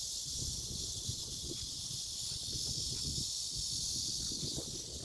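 Wind buffeting a phone microphone outdoors, with a steady high-pitched hiss over it.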